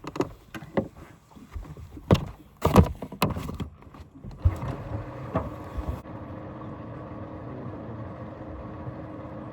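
Knocks and clatter on a bass boat, then from about four and a half seconds a steady motor hum.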